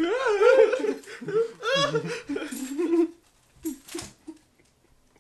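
A teenage boy laughing hard, the laughter rising and falling in pitch, for about three seconds before it stops. A brief soft noise follows about a second later.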